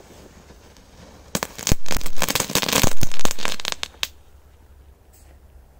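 A Korsar-4 firecracker with an added effect goes off on ice. A couple of sharp cracks come about a second and a half in, then a dense run of rapid, loud crackling pops lasts about two seconds and ends with one last crack about four seconds in.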